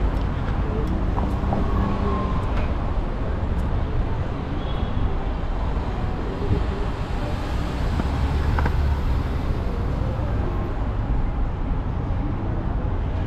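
City street traffic at a busy intersection: cars moving through the crossing over a steady low rumble.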